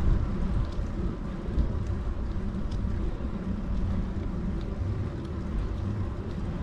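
Wind rumbling on the microphone of a bicycle-mounted action camera while riding, with faint scattered ticks over the steady rumble.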